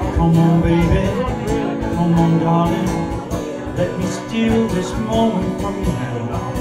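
Acoustic guitar strummed live with a cajón beat and a man singing long held notes.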